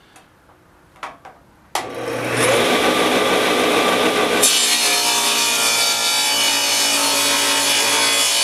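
Table saw switched on about two seconds in and running with a steady motor hum. From about four and a half seconds on, its blade cuts through a thin wooden board, and the noise grows brighter and louder.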